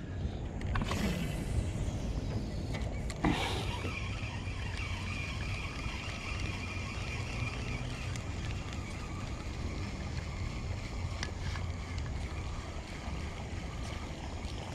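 A lure being retrieved on a spinning reel just after a cast. There is a brief swish about a second in and a sharp click about three seconds in, then the reel's steady winding over a low rumble.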